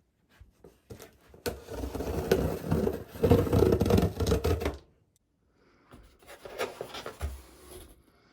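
Packaging being handled and opened: rubbing and scraping with sharp clicks, in two spells, the first from about a second in to about five seconds, the second from about six to eight seconds.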